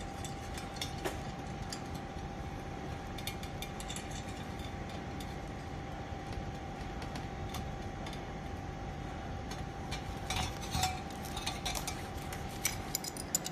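Light metallic clicks and clinks of steel nuts being put on and hand-tightened onto an exhaust clamp, busier near the end, over a faint steady hum.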